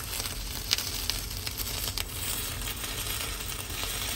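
Chicken curry sizzling and crackling in a frying pan as water is poured in from a glass jug, with a steady hiss and scattered sharp pops.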